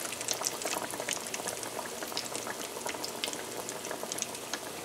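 Egg-and-flour-coated fish cakes frying in hot vegetable oil in a stainless steel pan: a steady sizzle full of many small crackling pops.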